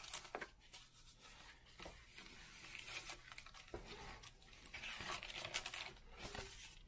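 Soft paper rustling and handling of a large hardcover book's pages, with a page turned over in the second half.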